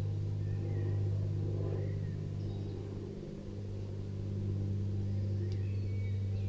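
Honey bees humming over an opened hive: a steady low drone that holds one pitch throughout.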